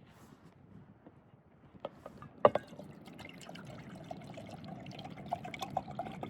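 Water being poured into a cooking pot or measuring container, a steady trickle that starts about three seconds in and grows fuller as it fills. Just before it, a sharp knock, as of the container being handled.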